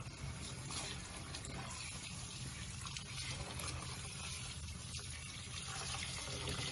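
Kitchen tap running into a pot of boiled fumbwa (wild spinach) leaves in a stainless-steel sink. The water fills the pot while the cooked leaves are rinsed by hand under the stream.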